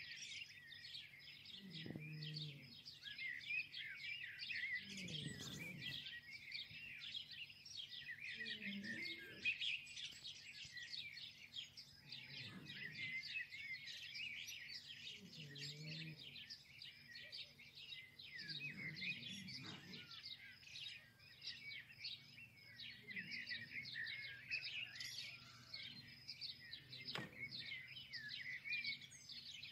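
A dense chorus of many small birds chirping continuously, faint and steady. A faint low sound recurs every three or four seconds underneath.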